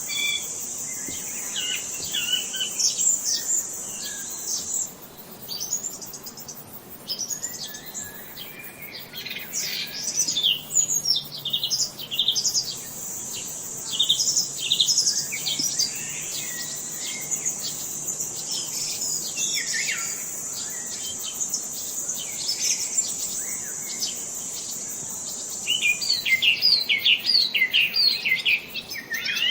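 Several songbirds chirping and singing in quick, overlapping phrases. A steady high buzz runs beneath them at the start and again through most of the middle.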